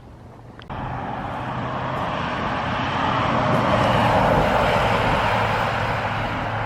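A motor vehicle passing on the road. Its engine and tyre noise comes in suddenly under a second in, swells to a peak in the middle and then fades a little.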